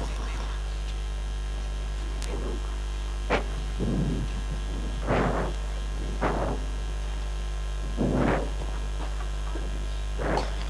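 Steady low electrical mains hum from the stage sound system, with a handful of short soft thuds at irregular intervals.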